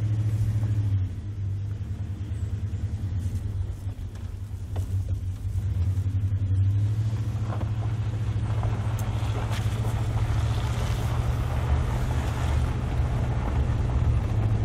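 A 2000 Dodge Ram pickup's engine runs with a steady low drone, heard from inside the cab as the truck pulls away. From about six seconds in, tyre and road noise rises under it as the truck drives onto the gravel road.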